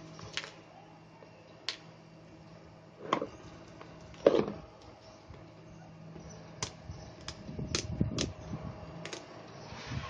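Cardboard box and packaging being handled and opened by hand: scattered light clicks, two louder knocks about three and four seconds in, then a run of rustling and knocking near the end, over a faint steady hum.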